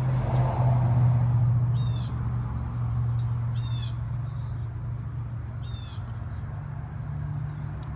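A bird calling four times, in short high calls that fall in pitch, over a steady low hum.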